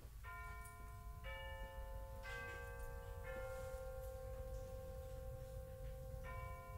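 A four-note bell-like chime, one note about every second, the last note held and ringing on; the same four-note sequence starts again near the end. A steady low rumble of store background noise runs underneath.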